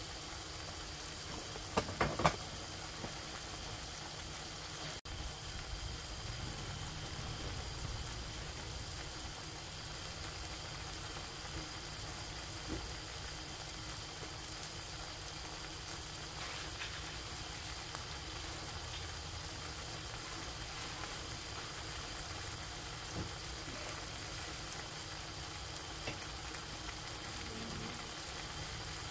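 Vegetable paella sizzling and bubbling steadily in its pan as the last of the broth cooks into the rice, with a few louder crackles about two seconds in.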